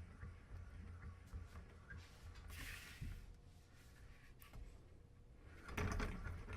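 Spinning desk globe with a finger rubbing on its surface: a faint low rumble from the spin, with two brushing swishes, one about two and a half seconds in and a louder one near the end.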